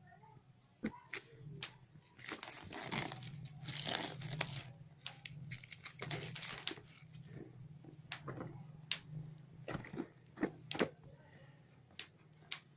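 Packaging crinkling and rustling in several stretches as the contents of a smartphone box are handled, with sharp clicks and taps scattered throughout.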